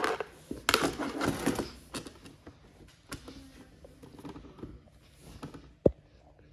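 Handling noises: rustling and scraping for about the first two seconds, then scattered light clicks and one sharp knock near the end.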